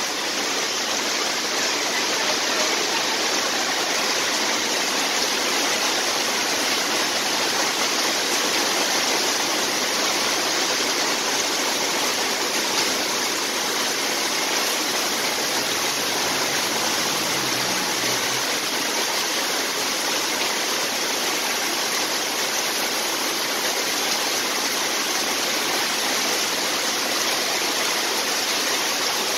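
Heavy rain pouring down steadily, an even, unbroken hiss of water.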